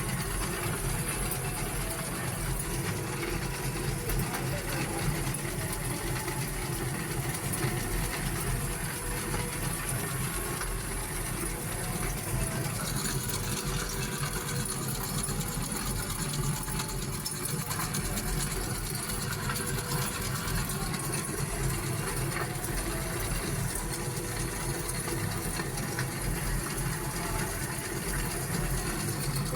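2019 Volkswagen Gol on the move, with a steady droning from a wheel. The drone runs unbroken with no change in pitch or level.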